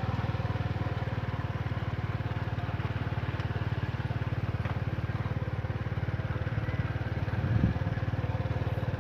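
Small motorbike engine running steadily at low speed while riding along a dirt track. A brief low sound stands out about seven and a half seconds in.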